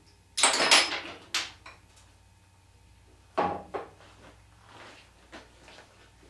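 Tools being fetched from a drawer: a drawer sliding and knocking shut and metal tools clattering, in a burst about half a second in and another about three and a half seconds in.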